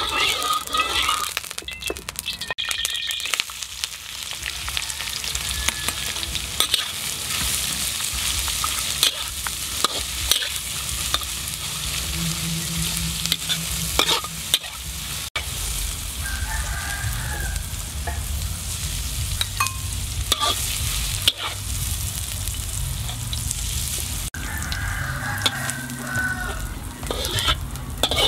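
Stir-frying in a metal wok: hot oil sizzling steadily while a metal spatula scrapes and clicks against the pan.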